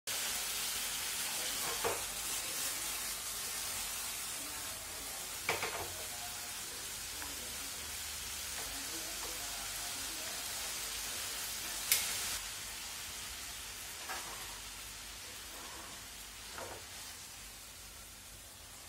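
Water spinach and garlic sizzling in a frying pan over a gas flame while being stir-fried with wooden chopsticks, which click against the pan several times. The sizzle fades near the end as the pan is lifted off the heat.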